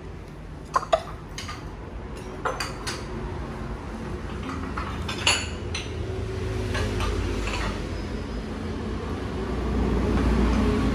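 Ceramic bowls and plates clinking against each other as they are handled and set down, in a scatter of sharp knocks, the loudest two close together about a second in. A low rumble builds toward the end.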